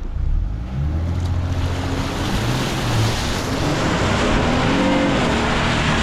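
Jeep Gladiator's engine revving hard with rising pitch as the tyres spin through deep water and mud, with a loud rush of water and mud spraying up around the truck that builds after a couple of seconds.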